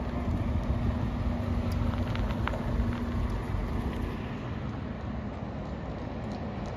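Scania articulated city bus driving past, its engine running with a steady low hum over road rumble; the hum fades about four seconds in.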